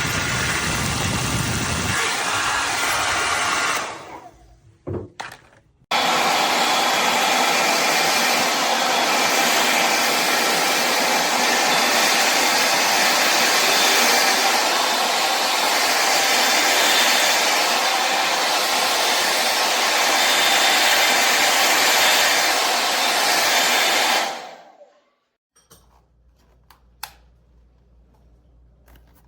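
AINA hair dryer running with a loud, steady rush of air. It cuts out about four seconds in and comes back on about two seconds later. It then runs steadily until near the end, where it switches off and winds down, leaving a few faint clicks.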